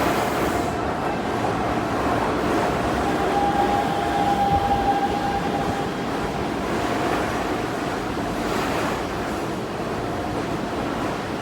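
Hanshin 5500 series electric train pulling into a terminus platform: a steady rumble of the moving train, with a thin held tone for a few seconds starting about three seconds in.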